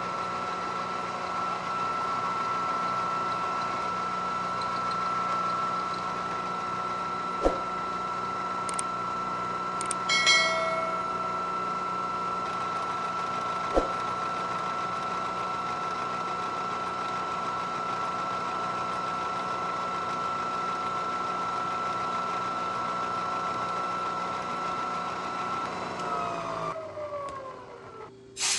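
Bridgeport vertical milling machine running a 4-flute end mill across an A2 tool-steel vise jaw, a steady whine with a couple of sharp clicks along the way. Near the end the spindle is shut off and winds down, its pitch falling away.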